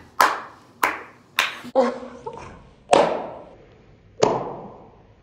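A woman clapping her hands, about six loud, unevenly spaced claps, each with a short ring after it.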